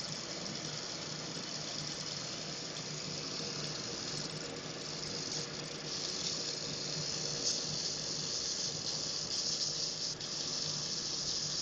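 Industrial belt sander running with a steady motor hum, under a hissing rasp from the abrasive belt that grows louder and rises and falls unevenly from about four seconds in.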